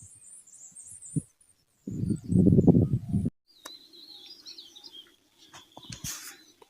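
Small birds chirping and twittering in high, short notes, twice interrupted by silence. A loud, low, rough noise lasts about a second and a half, starting about two seconds in.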